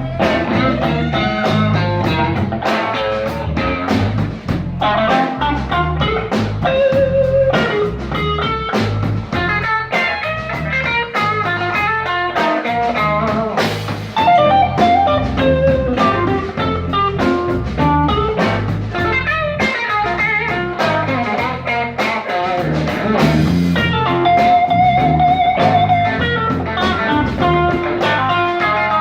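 Blues band playing an instrumental passage: guitar over a steady drum beat, with a long, wavering held guitar note near the end.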